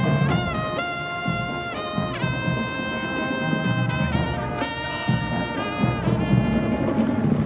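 Marching band brass section, mostly trumpets, playing loud held chords, with a few notes sliding in pitch.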